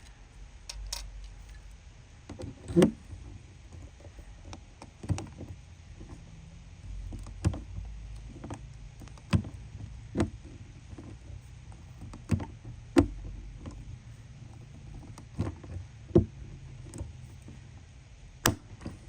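Hand pop-rivet tool being squeezed to set rivets, a sharp metallic click with each stroke, coming irregularly about once a second.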